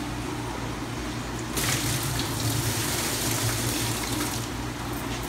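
Water pouring out of a plastic fish bag through a mesh net into a bucket: it starts about one and a half seconds in and gushes for about three seconds, over a steady low hum.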